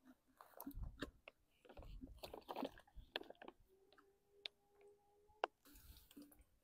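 Faint, irregular clicks and crinkles from the soft plastic pouch and fittings of a Sawyer Squeeze water filter being squeezed and handled.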